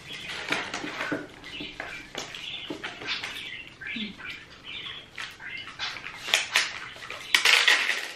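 Close-up chewing and mouth sounds of someone eating, with irregular wet, crackly smacks and a louder crunchy stretch near the end.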